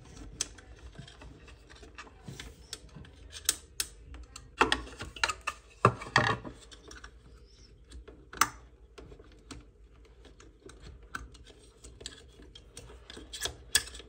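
Small plastic and metal parts and wiring being handled at a fridge compressor's relay: scattered light clicks and rattles, with a louder spell of clattering about five to six seconds in.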